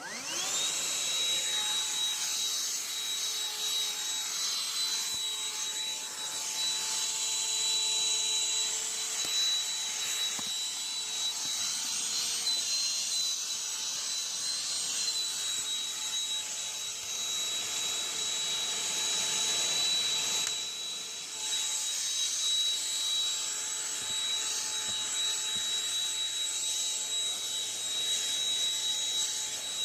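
Black & Decker CHV1410L 16-volt lithium handheld vacuum switched on and running: its motor whines up to a steady high pitch over a rushing of air, with a brief dip about twenty seconds in.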